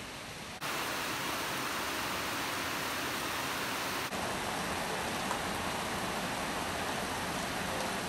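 Heavy rain pouring down steadily on trees and foliage, a dense even hiss. It starts abruptly about half a second in, after a duller rush of wind, and its character shifts slightly about four seconds in.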